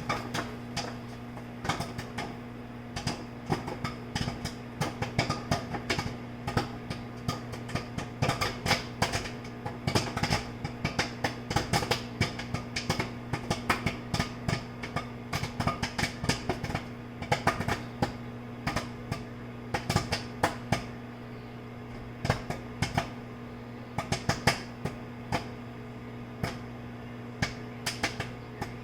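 Microwave popcorn popping inside a running Whirlpool microwave oven: rapid, irregular pops over the oven's steady hum. The pops are densest in the middle and thin out near the end as the kernels run out, the sign that the batch is nearly done.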